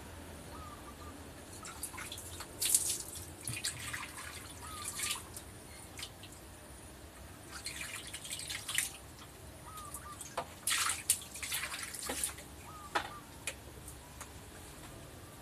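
Baby monkey eating banana: wet smacking and chewing clicks in short clusters every few seconds, with a few faint short chirps.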